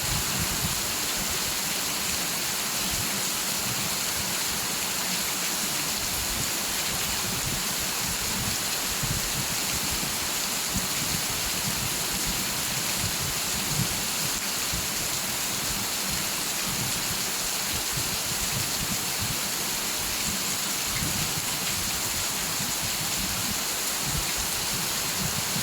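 Steady heavy rain, an even hiss with a flickering low rumble underneath.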